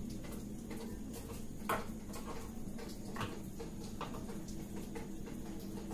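Quiet room tone with a steady low hum and a few faint clicks, the sharpest about two seconds in.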